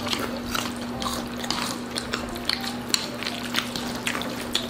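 Close-miked eating sounds: chewing, with scattered small clicks of utensils against dishes, over a steady low hum.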